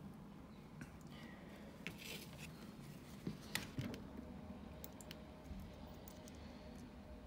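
Scattered light clicks and scrapes of small metal parts being handled on a brake caliper being reassembled, over a low steady hum.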